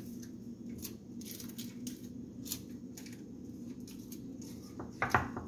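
Dry bay leaves crackling and rustling as they are pulled off the sprig and pushed in among chicken pieces in a glass baking dish, in scattered faint clicks over a steady low hum, with a few louder knocks near the end.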